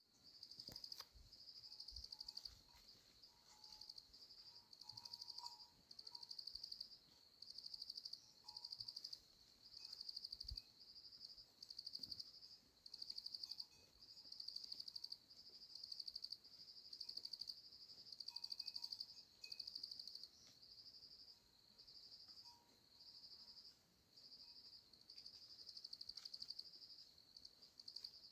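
Insects trilling, faint: high, buzzing trills about a second long, repeating with short gaps.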